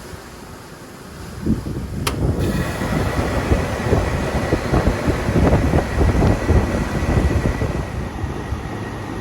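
A 2003 Goodman CKL 2.5-ton air-conditioner condensing unit starting up, its Tecumseh reciprocating compressor and condenser fan coming on about a second and a half in. A sharp click comes about two seconds in and a steady whine joins soon after, then the running sound settles a little lower near the end.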